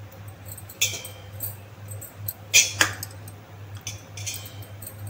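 Several short metallic clinks and scrapes against a steel cooking pot as rice is added for layering biryani, the loudest a close pair about halfway through, over a steady low hum.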